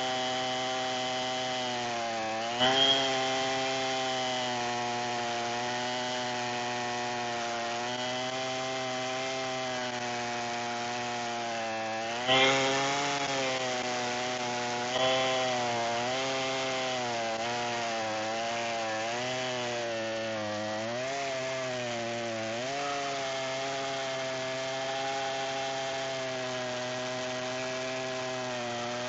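Gas chainsaw on a chainsaw mill ripping lengthwise through a sweet gum log, engine held at high revs under load. Its pitch sags and recovers several times as the cut bogs it down, with sharper bursts of louder sawing about 3, 12 and 15 seconds in.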